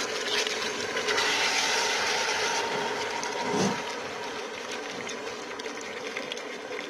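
Meat with chopped onion, garlic and spices sizzling steadily in olive oil in a pot as it browns, stirred with a wooden spoon, with one soft knock about halfway through.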